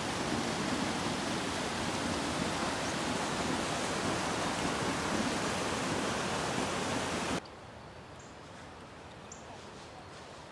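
Steady rush of Vernal Fall, the Merced River pouring over the granite lip. About seven seconds in it cuts off suddenly to a much quieter soft hiss, with two faint, short high chirps.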